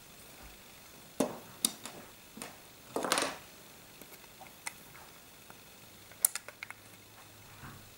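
Plastic Lego bricks clicking and knocking as the model is handled: scattered sharp clicks, a short rattle about three seconds in, and a quick run of clicks a little after six seconds.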